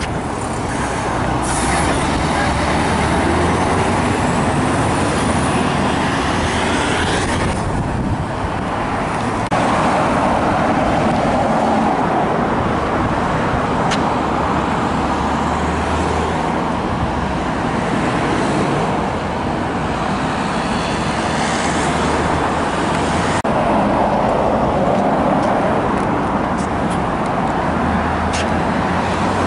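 Street traffic: car engines running and tyres on the road, a steady noise with no single rev or passing car standing out. The sound changes abruptly twice, about a third and three-quarters of the way through.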